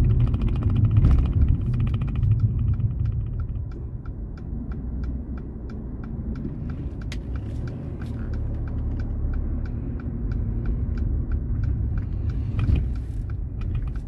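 Car cabin with engine and road rumble and the turn indicator ticking steadily, about three clicks a second, as the car turns in.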